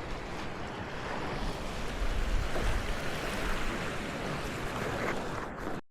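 Ocean surf washing on a beach, a steady rush, with wind buffeting the microphone.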